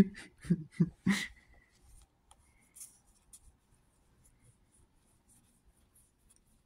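Faint rubbing and a few light clicks of trading cards and foil pack wrappers being handled, after a few short quick pulses of sound in the first second.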